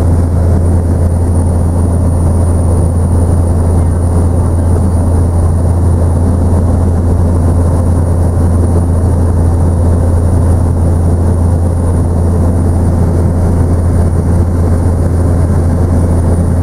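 Tour helicopter in flight, heard from inside the cabin: a loud, steady drone with a deep low hum and a thin high whine on top, unchanging throughout.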